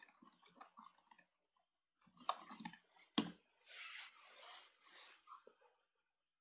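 Typing on a computer keyboard: scattered soft key clicks for about three seconds, ending in one sharper key strike, then a few soft hissing sounds.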